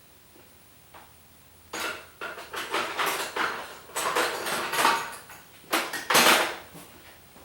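Hard objects clinking and clattering as they are handled, in a run of irregular knocks and rattles that starts a couple of seconds in and stops shortly before the end, loudest about six seconds in.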